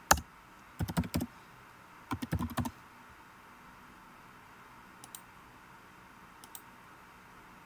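Computer keyboard typing in a few short bursts of key clicks over the first three seconds, then two faint single mouse clicks later on.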